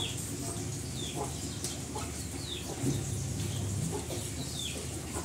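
Chickens clucking, with short high falling peeps about once a second and a lower drawn-out call about halfway through.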